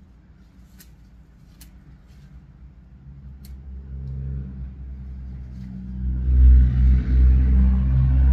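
A motor vehicle's engine rumble building from about three seconds in and loudest over the last two seconds.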